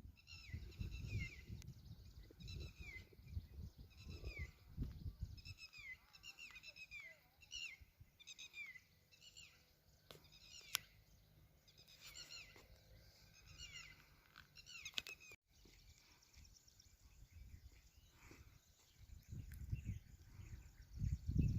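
A bird calling over and over in quick runs of short, high, falling notes, which stop about two-thirds of the way through. A low rumble lies under the calls for the first few seconds and again near the end.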